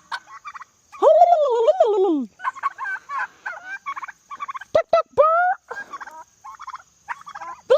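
Domestic turkeys gobbling and calling: a long falling call about a second in, then rapid rattling gobbles and short rising calls.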